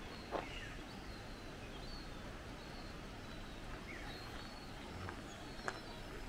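Faint, high chirps of small birds scattered over a steady outdoor hiss, with two sharp taps, one about half a second in and one near the end.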